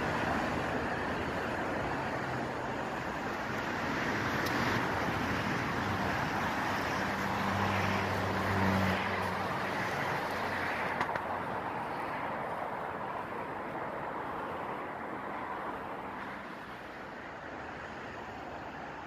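Road traffic rushing past, a steady wash of tyre and engine noise that swells and fades as vehicles go by. A vehicle's low engine hum stands out about eight seconds in, and the noise eases off near the end.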